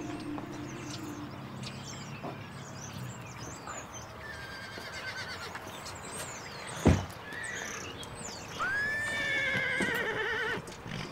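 A car engine's hum fades out in the first few seconds, a car door shuts with a sharp thud about seven seconds in, and then a horse whinnies for about two seconds near the end, its call rising and then wavering.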